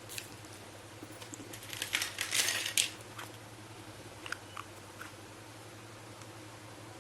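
Small plastic toy kitchen pieces being handled: a few light clicks and taps, with a short burst of scraping and rustling about two seconds in.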